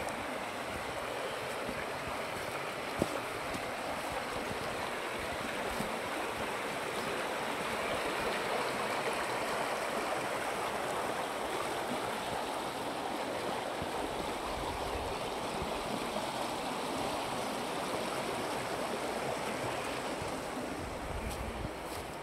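A small rocky stream rushing steadily over a short cascade, easing a little near the end. A single sharp click about three seconds in.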